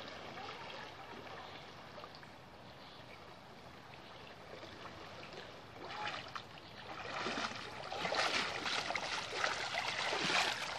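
River water running steadily, then from about six seconds in louder sloshing and splashing as a person wades through the water toward its deepest part.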